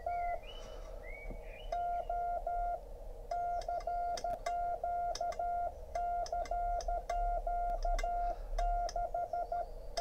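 Morse (CW) sidetone from a Yaesu FTDX10 transceiver, sent by its built-in automatic keyer while a homemade paddle is held closed. Runs of evenly timed dashes in one steady beeping tone, with short pauses between the runs.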